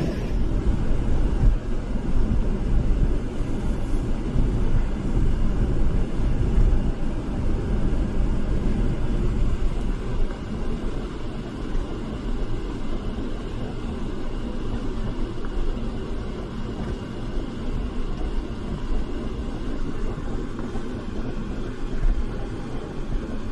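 A car driving, with a steady low road rumble.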